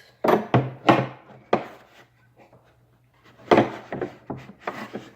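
Tools and small parts being handled and set down on a workbench: a run of short knocks and scrapes, a pause, then another cluster of knocks and scrapes.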